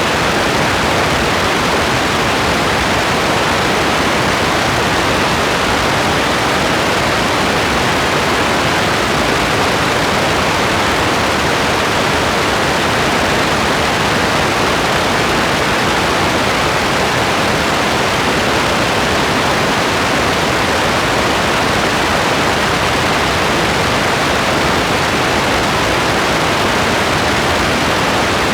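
Rain falling steadily: an even, unbroken hiss, with no single drops or thunder standing out.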